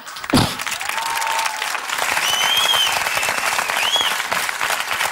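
Studio audience clapping, with a few high whoops from the crowd about two to four seconds in. A short low thump comes just after the start.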